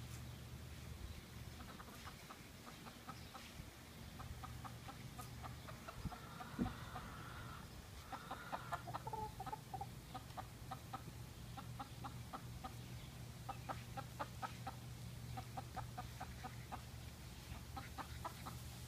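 Hens clucking in quick runs of short notes, on and off throughout. A single dull thump sounds about six and a half seconds in, over a low steady hum.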